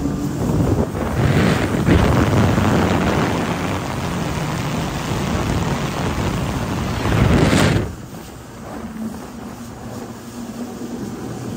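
Jet ski engine running at speed under a loud rush of wind and water spray on the microphone; about eight seconds in the rush drops away suddenly, leaving the engine's steady hum.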